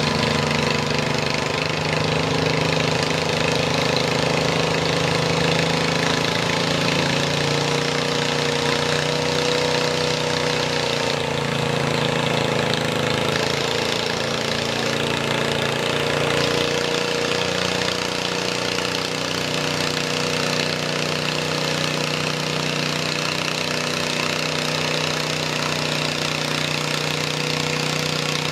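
Massey Ferguson garden tractor engine running steadily under load as it pulls a weight-transfer sled in a garden tractor pull.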